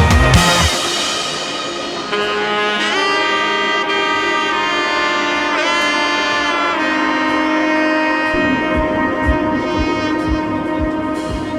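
Background music: a held brass or saxophone-like melody with sliding notes, after a loud drum passage that stops about half a second in, and soft low beats returning in the last few seconds.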